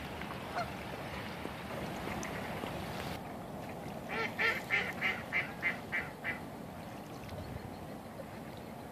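A waterfowl gives a quick series of about eight honking calls, roughly three a second, fading toward the end, over a steady wash of water.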